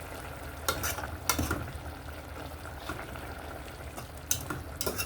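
Seasoned chicken sizzling in a cooking pot, with a spoon stirring it and a few short scrapes and knocks against the pot.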